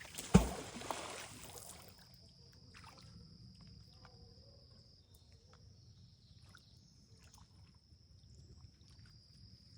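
A thrown magnet hitting the water with a splash just after the start, the noise dying away over about a second and a half. An insect keeps up a steady high trill throughout.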